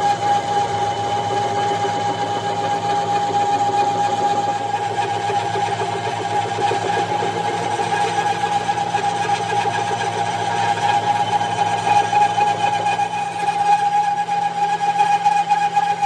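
Metal lathe running under load as its tool turns a steel workpiece: a steady mechanical hum with a steady whine.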